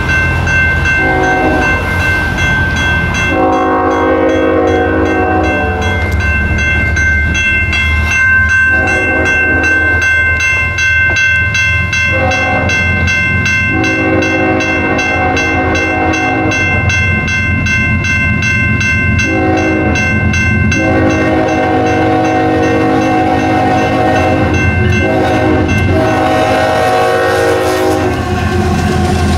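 Union Pacific ES44DC locomotive's multi-chime horn sounding a series of long and short blasts for the grade crossing. Under the horn are the steady ringing of the crossing bell and the low rumble of the approaching diesel locomotives, which reach the crossing near the end.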